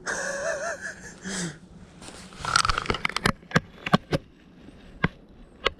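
Dry brush rustling and twigs snapping in a string of sharp, irregular cracks as someone pushes through dry undergrowth, after a brief noisy burst with a groan-like voice sound at the start.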